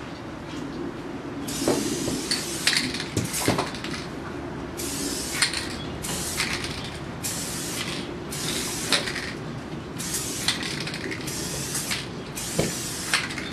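Montana 94 spray paint can spraying in about ten short, abrupt bursts of hiss, starting about a second and a half in, as flared letter strokes are laid down. A few small clicks fall between the bursts.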